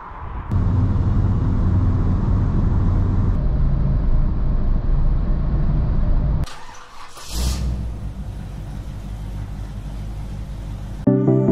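Škoda Octavia's 1.9 TDI four-cylinder diesel engine running in short edited clips, its pitch and loudness jumping at each cut. A brief rushing noise comes about seven seconds in, and music begins at the very end.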